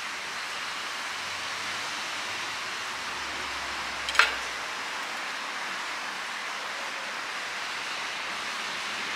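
Steady hiss of background noise, with a single sharp clink of tableware about four seconds in.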